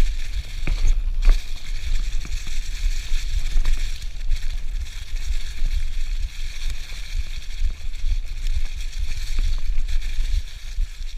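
Mountain bike rolling along a dirt trail covered in dry fallen leaves: a steady hiss of tyres through the leaves, with scattered clicks and rattles from the bike over bumps. A heavy low rumble of wind and vibration on the handlebar-mounted camera runs under it all.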